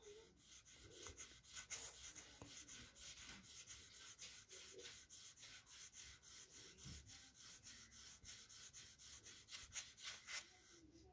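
Faint, quick back-and-forth scratching of a pink colouring stick on workbook paper as a picture is filled in, about three to four strokes a second, a few of them louder near the end.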